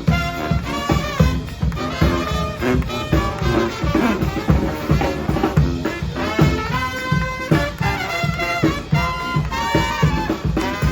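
New Orleans-style brass band playing live: brass horns carrying the tune over a steady drumbeat.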